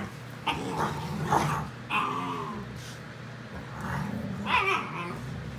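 Dogs play-fighting: low, steady growling with several short, high whines and yips that fall in pitch.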